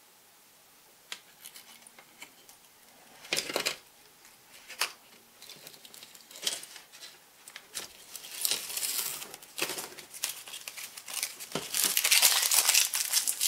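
Small hand work at a model-building bench, handling a photo-etch fret and kit parts: a few sharp clicks and taps, then a stretch of crinkling and rustling that grows louder near the end.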